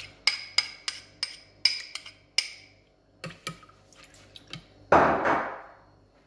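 A spoon knocking against a small ceramic bowl to shake off tomato paste: sharp ringing clinks at about three a second, then a few scattered taps. About five seconds in comes a louder rustling noise that fades over about a second.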